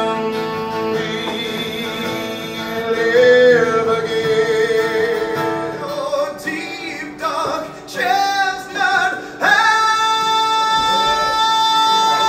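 A man singing with acoustic guitar accompaniment: a long held note, a few short phrases, then another long sustained note.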